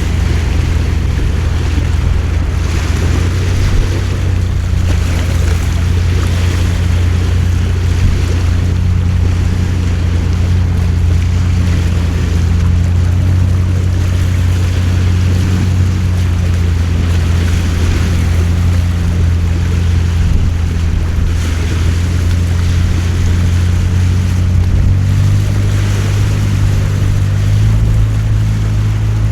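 A boat engine running steadily with a low drone that shifts slightly near the end, under a steady hiss of rain and water.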